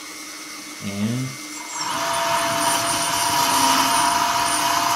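The Lesu SK500 LC RC excavator's electric track motor and final-drive gears start up about two seconds in and run steadily with a whirring whine, turning the track. It is a little bit loud in reverse: the motor's torque pushes it out against the housing, which a cardboard standoff gasket and lithium grease now keep it off.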